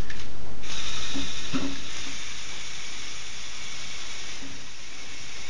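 Small electric motors and plastic gears of a remote-controlled Lego Technic excavator whirring with a steady hiss as the boom and bucket move. It is loudest in the first second, then eases slightly.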